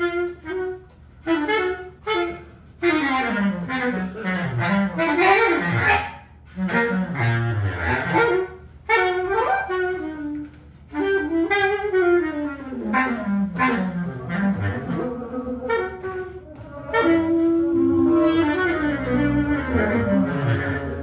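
Bass clarinet improvising free jazz: short broken phrases at first, then longer lines that glide and swoop down into its low register, and a steadily held note near the end.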